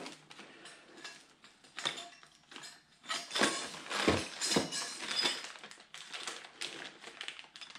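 A plastic bag of small metal hitch hardware (pins and wire clips) being handled: crinkling plastic with small metal parts clinking, in scattered clicks that come more often from about three seconds in.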